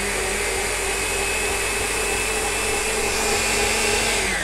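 Kenwood Electronic KM200 food mixer's motor running at its maximum speed setting: a steady high whine over a rushing hum. Near the end the pitch starts to fall as the speed dial is turned down.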